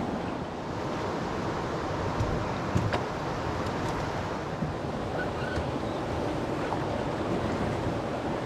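Steady rush of river water running over rapids and riffles, with a few short knocks about two to three seconds in as a paddler climbs into the canoe.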